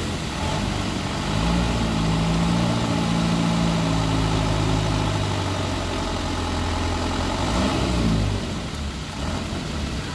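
Truck engine running under load as it tries to climb a slippery, rutted slope. It grows louder about a second in, holds fairly steady, then shifts in pitch and fades away around eight seconds in.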